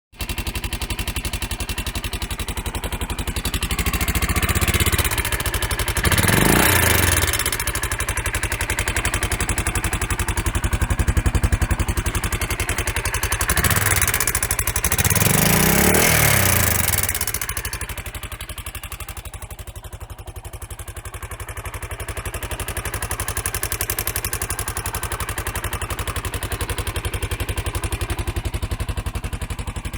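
Honda XR650L single-cylinder four-stroke engine idling with a regular ticking, revved up twice and settling back to idle. The tick is the sign of a loose valve seat, typically from the engine overheating while running lean.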